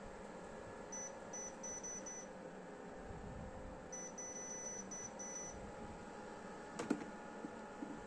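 Touch control panel of a Microhoo mini air cooler beeping as its buttons are pressed to step the setting: five quick short high beeps about a second in, then a run of about seven more around four seconds in. A faint steady hum runs underneath, and a single sharp knock comes near the end.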